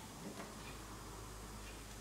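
Faint light clicks and taps of plastic motorcycle bodywork being handled and fitted, over a low steady hum.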